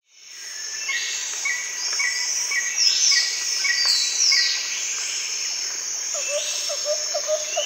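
Nature ambience of birds and insects: a steady high insect hiss under short bird chirps repeating about twice a second and a few falling whistled calls. From about six seconds in, a lower call repeats two or three times a second.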